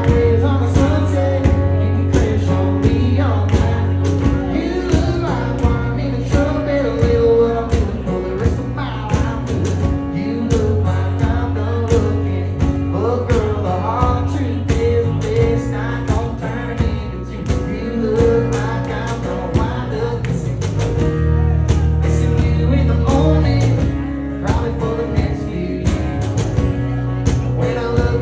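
Country song: a man singing over guitar, a steady bass line and a regular drum beat.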